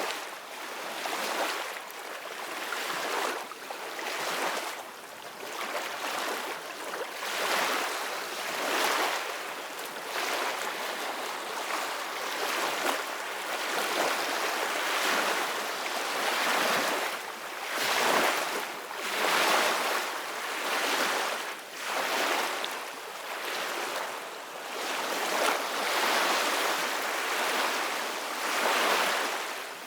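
Ocean waves breaking and washing on a beach, a continuous hiss of surf that swells and eases every second or two.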